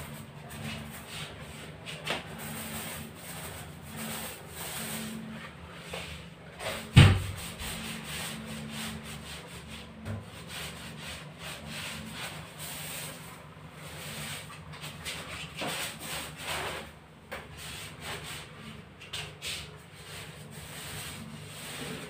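Paint roller on an extension pole being rolled up and down a wall: a rubbing swish that rises and falls with each stroke. One sharp knock about seven seconds in.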